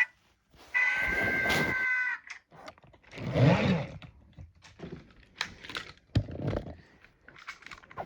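A steam-train whistle sound effect: one steady two-note blast lasting about a second. It is followed by scattered light clicks and knocks of plastic toy trains being handled, with a louder, lower sound about three seconds in.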